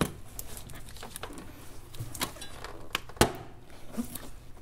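Silicone intake hose being worked by gloved hands onto a plastic mass airflow housing: scattered clicks and knocks with light rubbing between them, the loudest knock about three seconds in.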